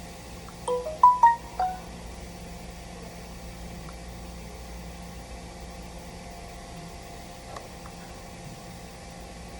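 Short electronic chime: a quick run of about five bright notes, about a second in, over a steady low hum.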